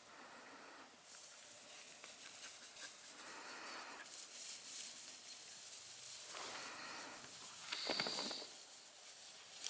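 Bordoodle puppies playing in grass: scuffling and rustling, with a brief high-pitched whine about eight seconds in.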